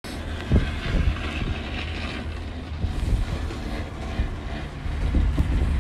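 Wind buffeting the microphone in gusts, a low rumble, over the hiss of skis sliding on snow, which fades after about two seconds.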